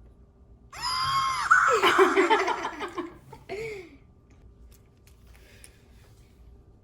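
Fingerlings Grimling Evil Gigi toy's electronic voice going into its evil mode: a loud, creepy laugh and shriek starting about a second in and lasting about two seconds, then a short squeal. Its light sensor has been covered to make it think it's dark.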